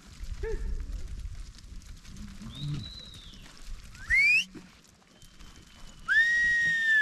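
A herding whistle: a short, sharply rising whistle about four seconds in, then a long held whistle near the end, loud against the low rumble of the hillside.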